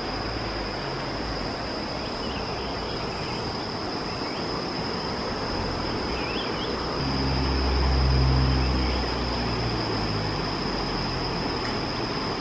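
Steady, even insect drone high in pitch over a dense rushing noise, with a low hum swelling in about seven seconds in and fading a couple of seconds later.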